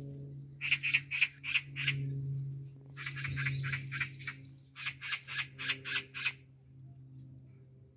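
Magpies giving harsh, rattling chatter in three bursts of rapid repeated calls, each a second or so long. This is the alarm chatter magpies make when mobbing a cat.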